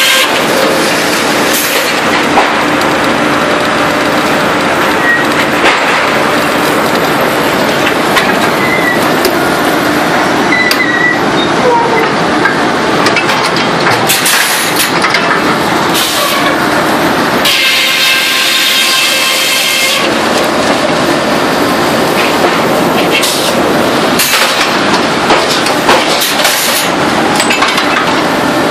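Sawmill saw cutting through timber, loud and continuous, with a short stretch partway through where a steadier, higher-pitched tone comes through.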